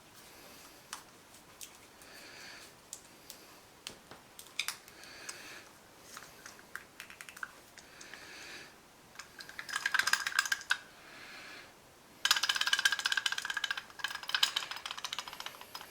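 Small model-kit parts being handled, with scattered light clicks. Then come two stretches of rapid rattling clicks, about ten seconds in and about twelve and a half seconds in, the second lasting a couple of seconds and the loudest thing here.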